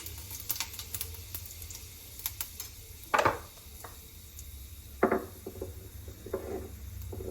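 Fenugreek seeds crackling and sizzling in hot oil in a pan, with scattered sharp pops and a few louder sizzles, about three and five seconds in. A utensil stirs against the pan.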